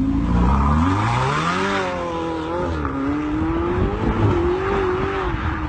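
Sports car engine revving hard as the car accelerates away. Its pitch climbs steeply for about two seconds, falls back, then holds with a wavering pitch.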